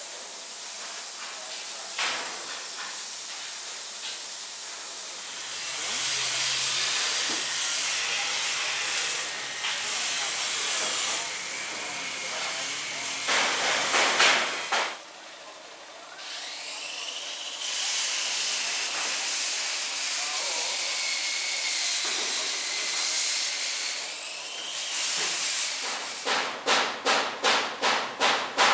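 Compressed-air paint spray gun hissing in long bursts as paint is sprayed onto a masked bus body panel, with a short break about halfway through. Near the end a rapid, even pulsing starts, about five beats a second.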